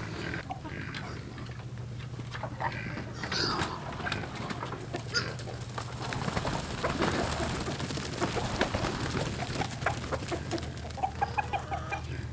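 Chickens clucking and calling as they are let out of their coop, with scattered knocks and clicks and a quick run of short clucks near the end, over a steady low hum.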